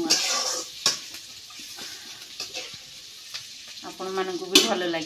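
Sliced onions frying in a metal kadai while a metal spatula stirs them, scraping the pan with a sharp knock against it twice, the louder one near the end.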